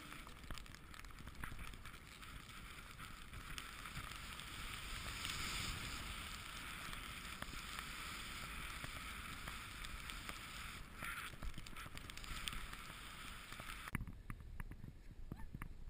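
Snowboard sliding over snow: a steady hiss of the board running on the snow, with wind buffeting the microphone. Near the end it drops abruptly to a quieter hush with a few faint clicks.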